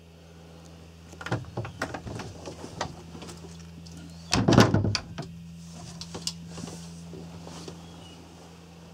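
Knocks and thuds of a wooden cabin door and woodwork while the boat's interior is walked through: a run of light knocks, then the loudest cluster of thuds about four and a half seconds in, then a few lighter clicks. A steady low hum runs underneath.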